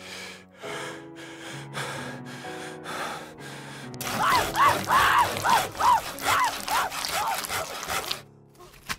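A saw cutting in about seven even back-and-forth strokes over low, sustained horror music. Then, about four seconds in, a person screaming in short rising-and-falling cries, about two a second, the loudest part, which stop shortly before the end.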